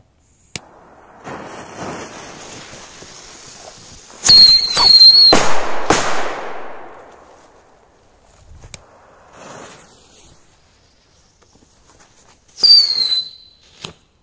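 Small whistling firework going off: a fizzing fuse, then a shrill wavering whistle about a second long amid loud hissing, and a sharp pop. Near the end a second, shorter whistle falls slightly in pitch.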